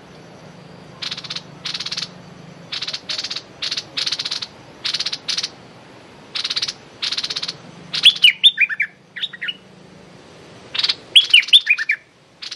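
Stripe-throated bulbul calling: a series of short, harsh 'rik' notes, mostly in pairs, aimed aggressively at another bulbul, then two quick runs of falling whistled notes about eight and eleven seconds in.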